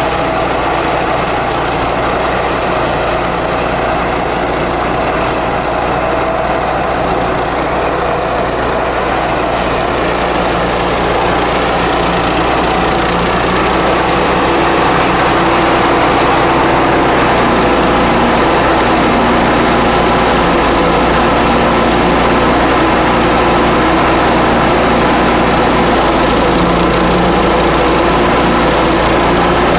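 Engine-driven rice thresher running steadily under load, a dense engine drone with its threshing drum, getting somewhat louder partway through. It is being fed tough, half-wet straw that makes the machine run heavy.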